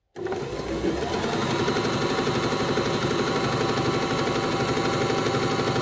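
Janome My Style 20 sewing machine stitching a three-step zigzag at a steady speed, with a fast, even stitching rhythm. It starts just after the beginning and is up to speed within about a second.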